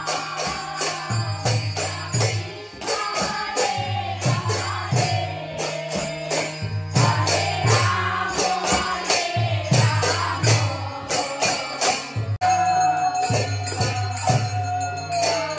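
Women singing a Bengali kirtan together, with clapping, a hand-struck brass gong (kansar) and tambourines keeping a steady beat.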